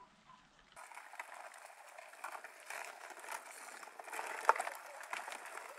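Drifting river ice during a breakup: a faint, even crackling hiss made of many small clicks as the floes rub and break, with one sharper click about 4.5 seconds in. The first second is nearly quiet.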